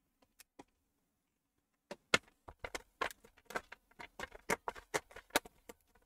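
HP laptop's plastic case being handled and turned over on a desk: from about two seconds in, a run of irregular sharp clicks and knocks as the body and lid are moved and opened.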